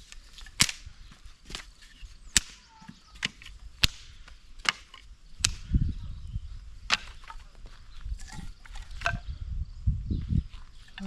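Repeated sharp cracks of wood, roughly one a second, as branches of a storm-downed tree are snapped and broken. Wind gusts rumble on the microphone between the cracks, strongest in the second half.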